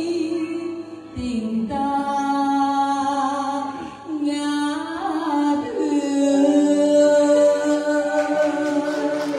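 A woman singing a slow Vietnamese song into a microphone, with grand piano accompaniment, holding long notes with small glides in pitch between them.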